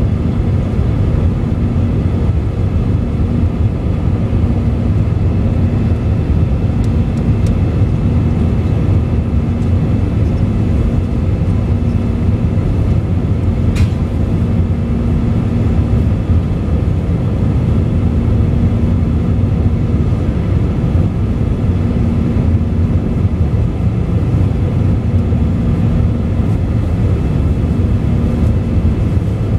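Airliner cabin noise at cruise, heard from a window seat beside the wing-mounted jet engine: a steady drone of engine and rushing air, with a low hum that swells and fades every few seconds. One faint click about halfway through.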